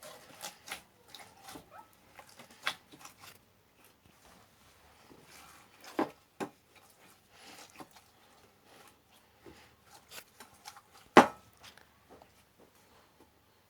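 Slime being stirred and squished, giving irregular clicks and pops, with one sharper, louder pop about eleven seconds in.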